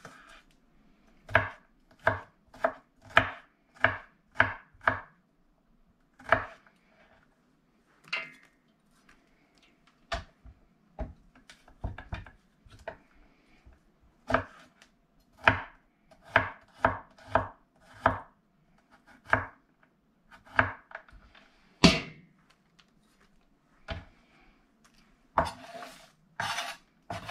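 Kitchen knife chopping garlic cloves on a wooden cutting board: runs of sharp taps, about two a second, broken by short pauses.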